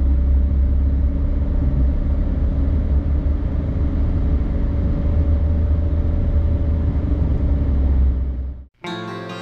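Steady low rumble of road and engine noise inside a moving car. It cuts off suddenly near the end, where acoustic guitar music begins.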